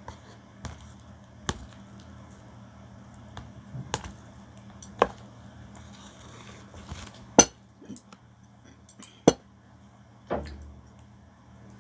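Plastic chopsticks clicking and tapping against a plastic food container and a ceramic bowl while picking up noodles and vegetables: sharp single clicks a second or two apart, two of them louder in the second half, over a faint low steady hum.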